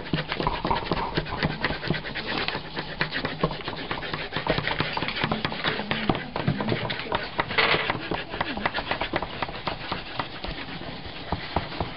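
Felt-tip pens and coloured pencils scribbling on paper over a tabletop: quick scratchy strokes and many small taps in irregular rapid succession.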